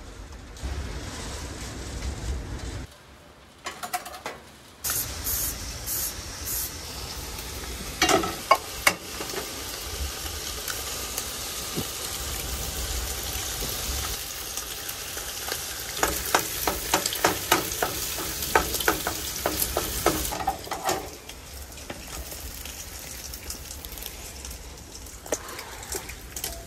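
Bacon frying in a metal baking pan over a propane camp-stove burner: a steady sizzle with fat crackling and spattering, in a fast run of pops about two-thirds of the way through. The bacon is frying hot enough to burn and smoke despite a low heat setting. A low rumble runs under the first few seconds.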